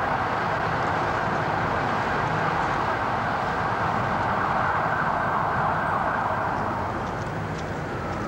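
Steady rumble of a moving vehicle, an even noise that eases a little near the end.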